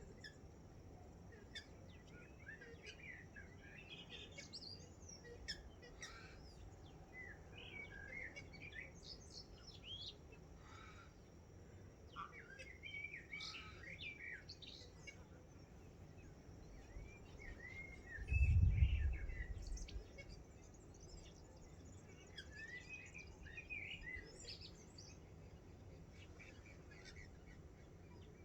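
A dawn chorus of several birds, with many short chirps and warbled phrases overlapping throughout. About two-thirds of the way in comes a brief low rumble, the loudest sound here.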